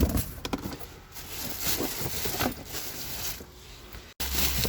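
Box and packaging being handled and opened: scattered rustles and small knocks, broken by a brief cut about four seconds in.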